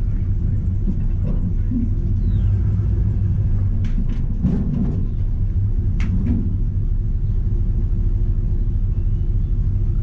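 Vehicle engine and exhaust running with a steady low rumble as it drives slowly. A few short clicks come through midway.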